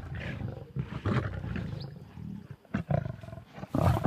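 Lions growling and snarling as they fight over shares of a warthog carcass while feeding, in several rough bursts, the loudest near the end.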